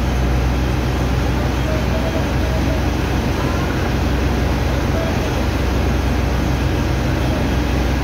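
Sand-dredging pump machinery running steadily, a loud low drone with a hiss of water over it, as wet sand is pumped out of a vessel's hold.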